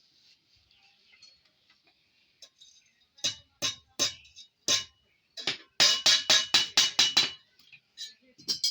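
Blacksmith's hammer striking metal on an anvil with a metallic ring: a few spaced blows, then a quick run of about nine strikes at roughly five a second, then two more near the end.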